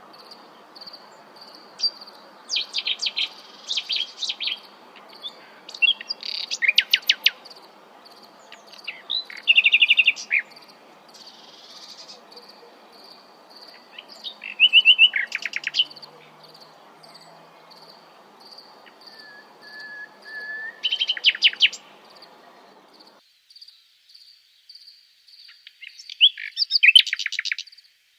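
Nightingale singing: short loud phrases of rapid repeated notes, with pauses of a few seconds between them, and one pure whistled note midway. A steady, fast-pulsing high chirr runs behind the song throughout, and the low background hiss cuts off suddenly about two-thirds of the way in.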